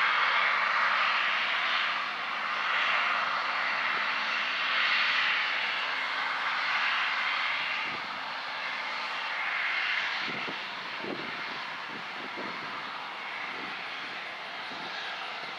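Case combine harvester running at harvest, a steady machine roar of engine and fans, easing slightly after the first couple of seconds. A few short knocks come through between about ten and thirteen seconds in.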